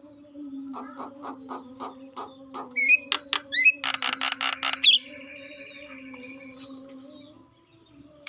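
Javan myna (jalak kebo) singing: a run of quick clicks, then a few whistled gliding notes, then a loud harsh rattling burst about four seconds in, tailing into a fainter held note. A steady low hum runs underneath.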